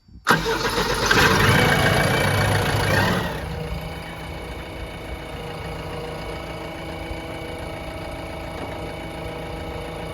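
Diesel engine of heavy machinery running, working harder for about the first three seconds, then settling to a steady, quieter run.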